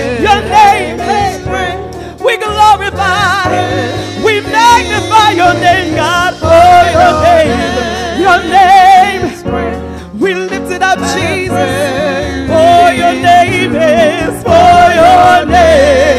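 Two women singing a gospel worship song into microphones, the lead voice wavering with vibrato, over instrumental backing with steady bass notes that change every second or two.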